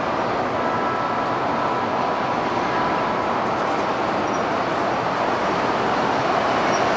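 Steady airport apron noise: a continuous jet hiss with a faint thin whine running through it, from aircraft turbines idling nearby.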